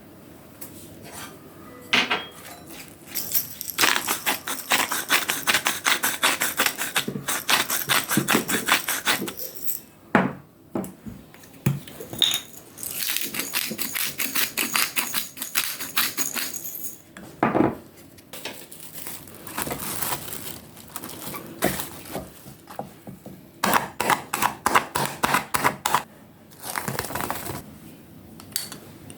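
A kitchen knife chopping on a cutting board in several runs of quick, even strokes, with short pauses between runs.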